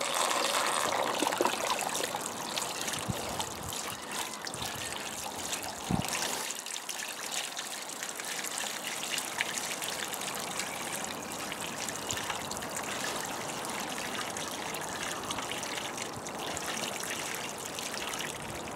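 Muddy water pouring and trickling from a tilted plastic bucket into a tub of muddy water, as the slimes water is decanted off the gold concentrate. The pour is louder in the first couple of seconds, and there is a single knock about six seconds in.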